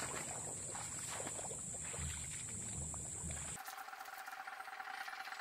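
Open-air wetland ambience: uneven low rumbling and a steady high-pitched insect buzz, which change abruptly about three and a half seconds in to a quieter, steady droning chorus of calling wildlife.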